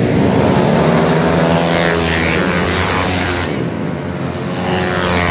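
Small racing scooter engines at high revs passing close by one after another, the pitch dropping as each goes past.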